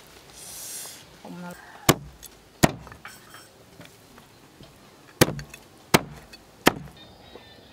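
Heavy cleaver chopping through a snake's body into a round wooden chopping block: five sharp chops, two about two seconds in and three more roughly a second apart near the end.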